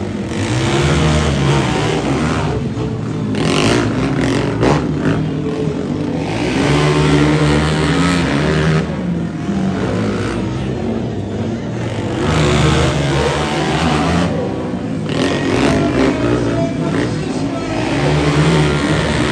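Several sport quads (ATVs) racing, their engines revving hard and backing off the throttle again and again, so the engine pitch rises and falls in swells every few seconds.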